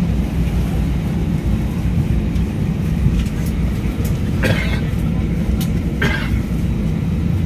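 Steady low cabin rumble inside an Airbus A320, with two short rustles about four and a half and six seconds in as a hand brushes the seat-back pocket.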